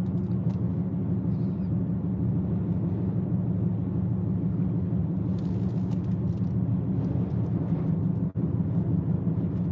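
Steady low rumble of a car in motion, engine and tyre noise heard from inside the cabin.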